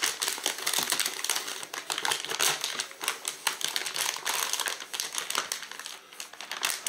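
Plastic packaging crinkling and rustling as it is handled: the motherboard's silver anti-static bag and its box, a dense run of small crackles and clicks.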